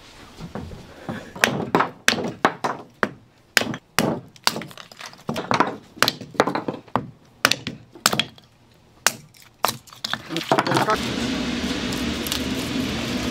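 Firewood being split into kindling on a log chopping block: a run of sharp wooden knocks and cracks, about two a second, with splits clattering down. About 11 seconds in the blows stop and a steady rushing background noise takes over.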